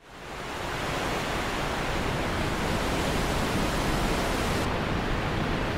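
Waterfall rushing: a steady, even noise of falling water that fades in at the start. A little before the end the sound turns duller as its highest hiss drops away.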